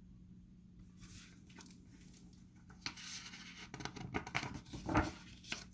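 Paper rustling and scraping as the pages of a picture book are handled and turned, sparse at first and busier and louder over the last few seconds.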